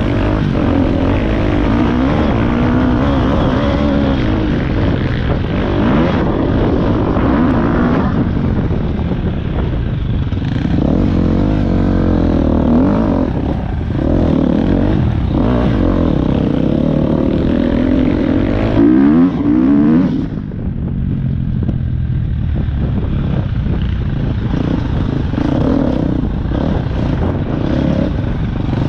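Motorcycle engine running hard, its revs rising and falling over and over, with a brief louder burst about two-thirds of the way through and then a short easing off.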